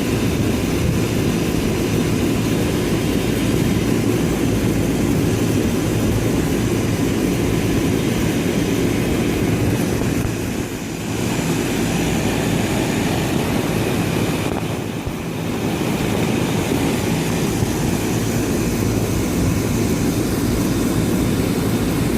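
Outdoor air-conditioning condenser unit running: its fan and compressor make a steady hum with rushing air, dipping briefly twice.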